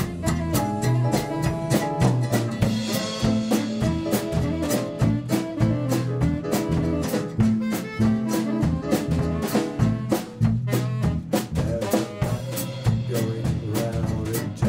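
Small swing jazz band playing live, with a saxophone over a drum kit that keeps a steady beat.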